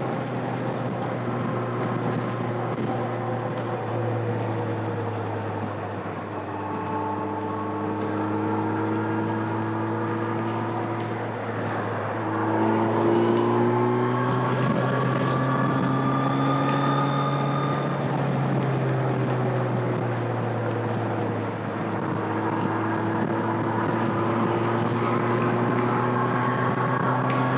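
2025 Kawasaki Z900's inline-four engine through its stock exhaust, running steadily at highway speed. The note sags slightly a few seconds in, then rises and gets louder under throttle about twelve seconds in.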